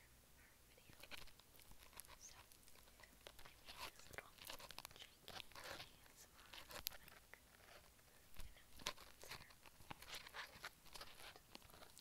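Soft whispering close to a cheap clip-on microphone, mixed with crackling and a few sharp clicks as the mic and its foam cover are handled, over a faint steady hiss from the mic.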